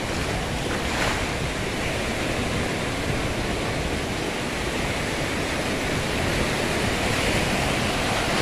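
Waves washing steadily against the shore, with wind blowing on the microphone and a slight surge about a second in.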